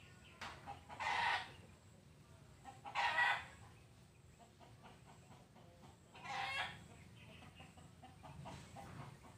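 Chickens calling: three short, loud calls come about a second in, three seconds in and six and a half seconds in.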